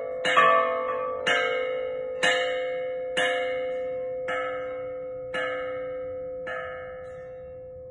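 Two-tonne bronze church bell tolled by its clapper: about seven strokes, each ringing on. The strokes come a little further apart and grow weaker toward the end, over a steady deep hum that carries on between them.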